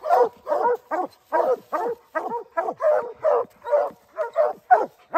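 Several Treeing Walker coonhounds barking treed at the base of a tree, a steady run of chop barks at about three a second: the hounds have a raccoon up the tree.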